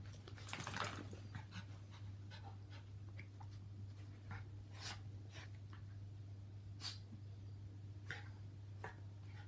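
Small dogs play-fighting: faint panting and snuffling with scattered short scuffles, and a louder burst about a second in.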